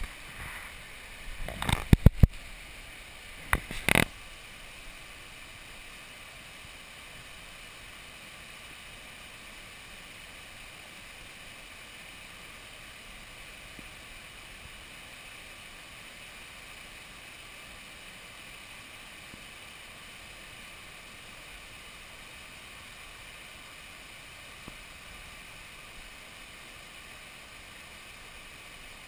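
Water pouring over a river weir and through its fish pass: a steady rushing hiss. A few loud knocks and bumps come in the first four seconds.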